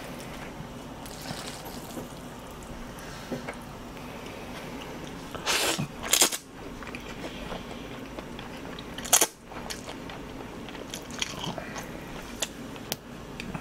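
Close-miked eating of chewy cold mixed noodles (jaengban-guksu): chewing, with two loud mouth sounds about five and a half and six seconds in, another about nine seconds in, and a few smaller ones near the end.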